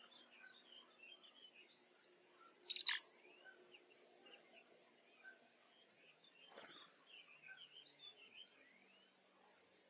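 Small birds chirping and twittering faintly and repeatedly, with one louder, short sharp call or click about three seconds in.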